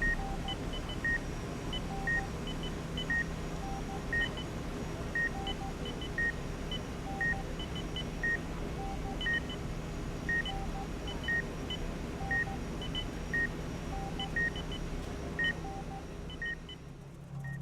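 Short electronic beeps repeating about once a second, with fainter higher and lower beeps repeating at different rates, over a steady low hum. The beeping stops shortly before the end.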